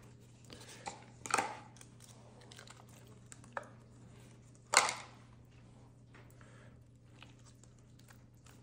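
Small plastic deli containers being handled and emptied into a stainless steel bowl of salad greens: soft rustling with a few light clicks and taps, and one sharper knock about five seconds in.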